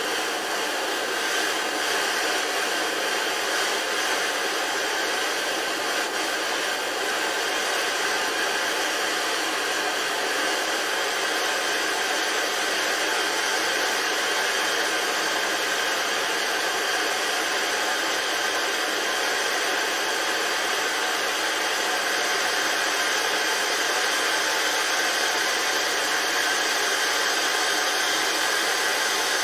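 Two gas torches burning with a steady, continuous hiss, their flames heating an O1 tool-steel blade for hardening.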